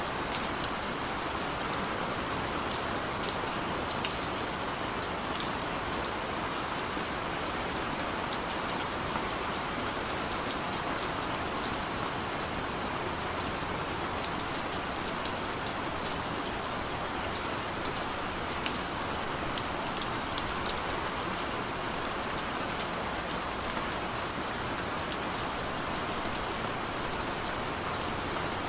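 Steady rain falling, a constant hiss with scattered close drops ticking sharply on a surface.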